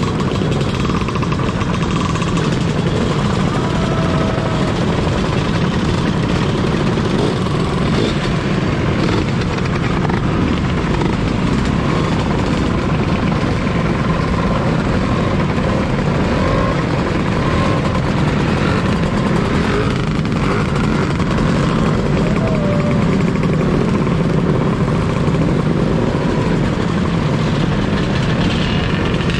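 A long stream of Lambretta and Vespa scooters riding past one after another, their small engines running together in a steady, unbroken din.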